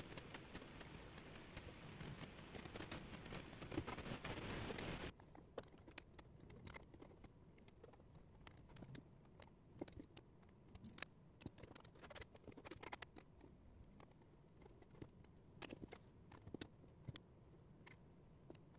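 Light clicks and taps of thin wooden jigsaw puzzle pieces being picked up, slid and set down on a table. A steady hiss lies under them for about the first five seconds, then cuts off suddenly.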